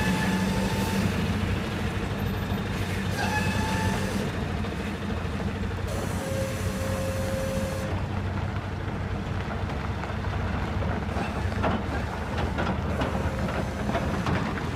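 Heavy-haul truck's diesel engine running steadily as it tows an empty multi-axle lowbed trailer. A few short squeals come from the rig near the start and about three and a half seconds in, and a longer squeal at about six seconds.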